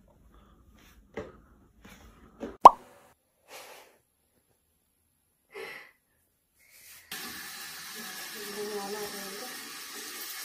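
A single sharp pop with a quick rising pitch, a few scattered small sounds, then from about seven seconds in a tap running steadily into a bathroom sink as a kitten's paws are washed under it.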